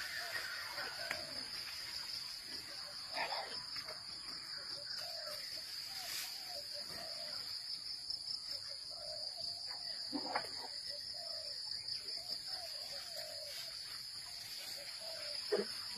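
Steady high-pitched drone of jungle insects, unbroken throughout, over softer, lower chirping calls and a few brief faint knocks.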